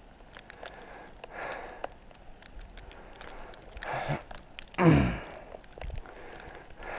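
A person breathing hard while walking down through deep snow, with breaths every couple of seconds and a loud voiced exhale about five seconds in that slides down in pitch, plus faint scattered ticks.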